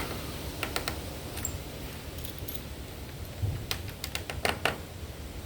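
Screen spline roller being worked along a screen door frame, pressing tight spline into the channel, with scattered light metallic clicks and taps, clustered about a second in and again around four seconds in.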